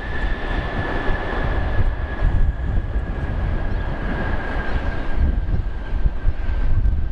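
Airbus A330-300 jet engines on the landing rollout. A steady whine sinks slowly in pitch over a rushing jet noise and a low rumble as the airliner slows down the runway.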